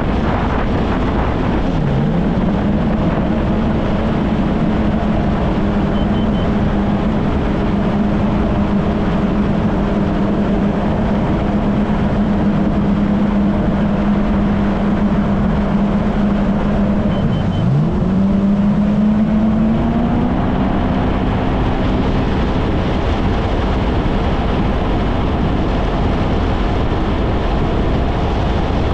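Kawasaki Ultra 160 LX-S jet ski's naturally aspirated engine running at a steady cruising speed, with wind and water rushing past. The engine note drops sharply and picks back up about two seconds in and again around eighteen seconds in, settling slightly higher after the second dip.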